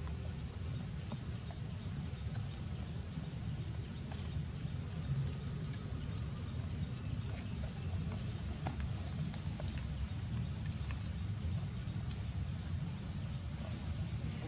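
Steady high-pitched insect chorus, pulsing regularly a little faster than once a second, over a constant low rumble.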